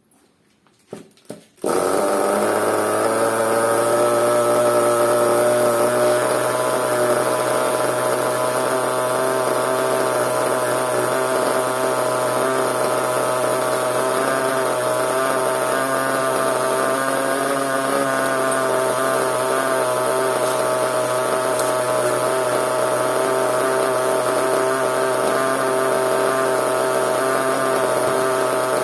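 A few light clicks, then about two seconds in a CEN nitro RC monster truck's small glow-fuel engine starts abruptly and settles into a steady idle.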